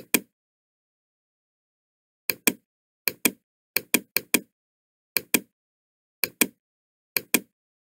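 Computer mouse button clicking eight times at uneven intervals. Each click is a sharp double tick as the button goes down and springs back up.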